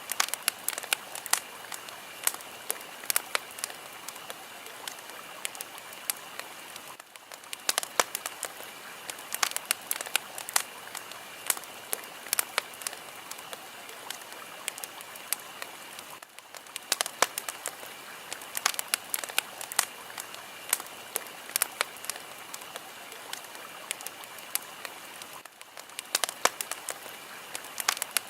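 Fire crackling: a steady hiss with frequent sharp, irregular pops and snaps, dipping briefly about every nine seconds.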